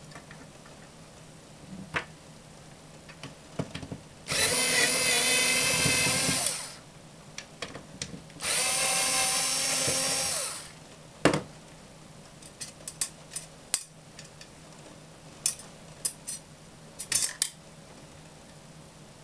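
Small cordless electric screwdriver running twice, each run about two seconds of steady motor whine, as it backs screws out of a metal drive bracket. Afterwards there are scattered light clicks and taps.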